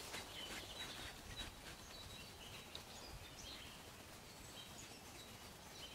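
Faint background noise with distant birds chirping now and then, short high calls scattered through.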